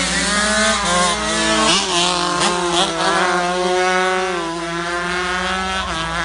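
135cc racing motorcycles running at high revs as they pass on the track. The engine note climbs, dips sharply and climbs again several times.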